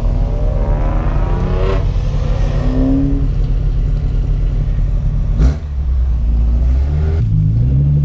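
Infiniti G37's V6 engine and exhaust heard from inside the cabin while driving: a steady drone, one sharp pop about five and a half seconds in, then the revs rising as the car accelerates.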